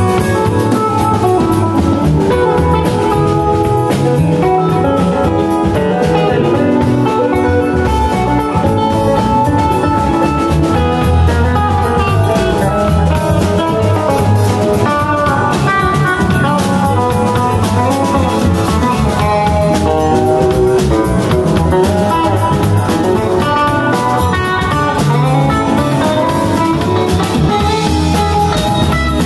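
Live band playing: electric guitars over keyboard and a drum kit.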